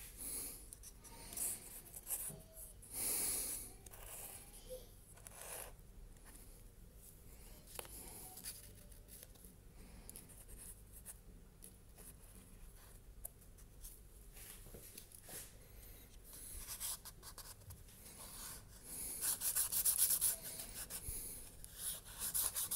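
The nozzle of a tube of neoprene contact glue scraping and rubbing across a sandal's insole as the glue is squeezed out and spread, with irregular scratching and handling noises. A louder stretch of rubbing and rustling comes near the end as the sandal is handled.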